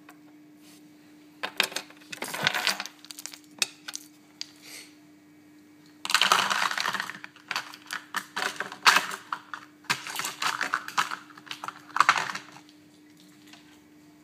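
Small hard polymer clay charms clicking and clattering as they are picked through and handled, in two spells of rapid clicks with a short pause between them.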